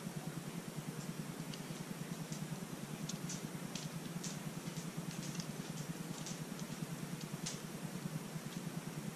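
Faint scattered clicks and taps as a canvas of wet poured acrylic paint is handled and tilted over a plastic drop cloth, most of them bunched in the middle, over a steady low hum.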